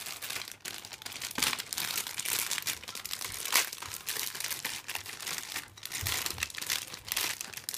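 Thin clear plastic bags around model-kit parts runners crinkling and rustling as they are handled, an irregular crackle with no pauses.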